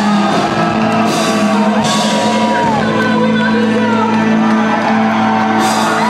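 Live synth-rock band playing loud through a concert PA, a singer's voice gliding over a steady bass note, with the crowd shouting and whooping.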